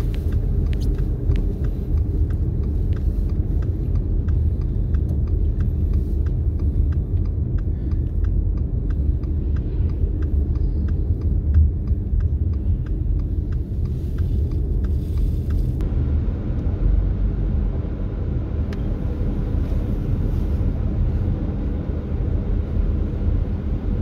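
Low, steady road and engine rumble of a car heard from inside the cabin while driving on a snow-covered road. A faint regular ticking, about twice a second, runs under it and stops about two-thirds of the way through.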